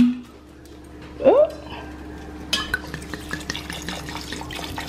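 Cooking in a pot of meat sauce as white wine is added: a sharp clink at the start, a short rising squeak about a second later, then a run of quick irregular scraping clicks and crackle from a spoon stirring in the pan.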